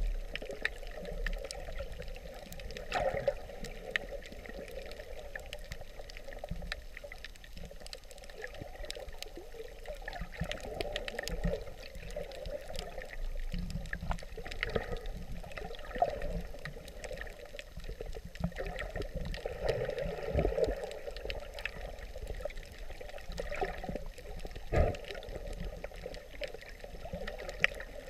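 Muffled water sloshing and gurgling as picked up by a camera held underwater, with scattered sharp clicks and knocks on the housing, the loudest near the end.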